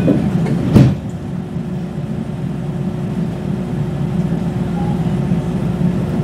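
Inside a stationary JR West 221 series train: one sharp, loud thud about a second in, the doors shutting before departure, then a steady hum and low rumble from the car's onboard equipment.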